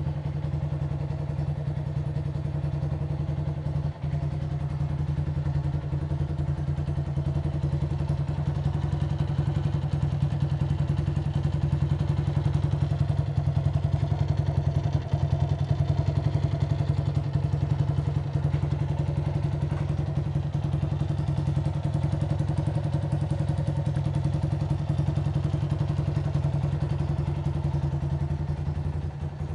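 Honda CG 125 Titan ES single-cylinder four-stroke engine running steadily at idle through an aftermarket Aluminium RS exhaust with a figure-eight outlet, its exhaust pulses coming rapidly and evenly. The pitch holds level with no revving, and it gets a little louder in the middle.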